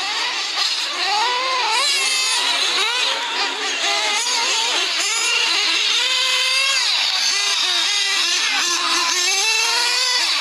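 Several radio-controlled off-road buggies racing, their motors whining at once, each pitch rising and falling as they accelerate and brake around the track.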